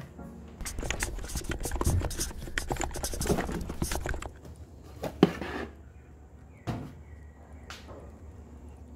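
Plastic jars and packets knocking and rustling together as a hand rummages along a crowded kitchen cupboard shelf, with one sharp click a little after five seconds. A couple of single light knocks follow near the end as a plastic jar is set down on a metal oven top.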